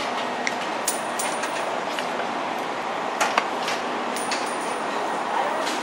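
Steady background noise with scattered light clicks and knocks as snacks are handled and stocked into an open snack vending machine.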